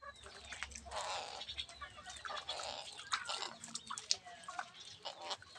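A crow making a few brief soft calls among irregular clicks and crackling noises.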